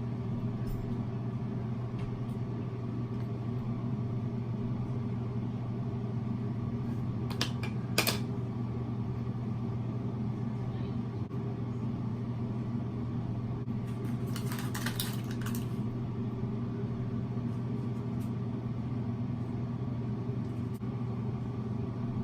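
A steady low mechanical hum, like a motor running, with a couple of sharp clicks about eight seconds in and a short run of clicks around fourteen to fifteen seconds.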